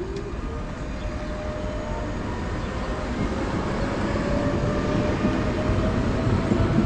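Tram's electric traction motors whining, the pitch rising slowly and the sound growing louder as it gathers speed, over a steady low rumble.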